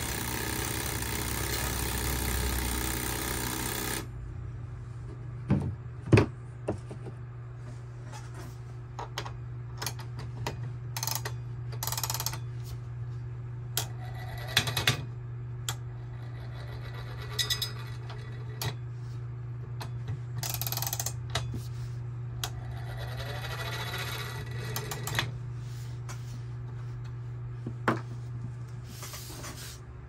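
Vintage Gamewell fire alarm telegraph register and its take-up reel being worked by hand. A steady whirring stops abruptly about four seconds in. Then come scattered metallic clicks and knocks as the take-up reel is turned and wound, over a steady low hum.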